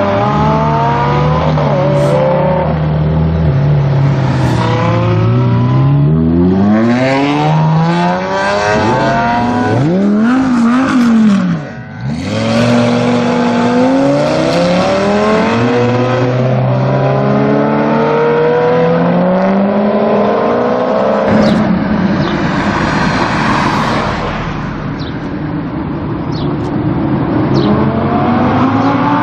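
Supercar engines revving and accelerating, the pitch climbing and dropping back again and again, with a short dip in level about twelve seconds in; the last third is rougher and noisier.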